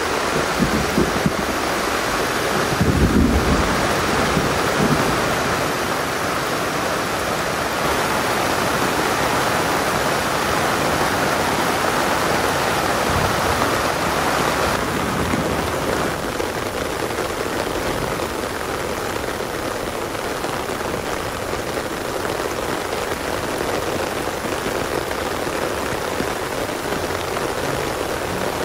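Heavy rain falling steadily, a dense even hiss, with a brief low rumble about three seconds in.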